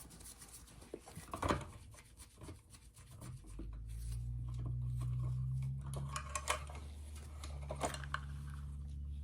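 Scattered small clicks and rubbing from hand work on a burner's wiring and parts. About three and a half seconds in, a steady low hum starts and runs on.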